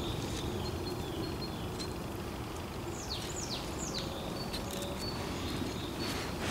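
Outdoor ambience with a steady low background noise, and a bird giving three quick downward-sliding calls about three seconds in.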